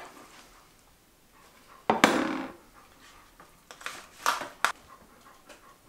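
Kitchen handling noise: a sharp clatter of dishes about two seconds in, then a few quick taps and scrapes of a fork in a foil tray of pulled pork.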